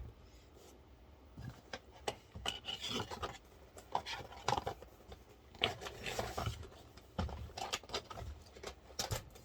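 Handling noises: irregular rubbing and scraping with scattered light clicks, as computer parts and their packaging are moved and handled.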